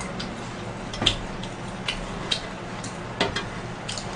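A few light clicks and taps from a butter-grilled shrimp being picked off an electric grill pan and brought to the mouth, over a faint steady hiss.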